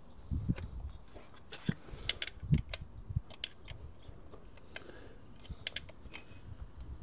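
Light, scattered metallic clicks and ticks of a spanner and the carburettor throttle linkage as throttle cables are fitted to a motorcycle's bank of four carburettors.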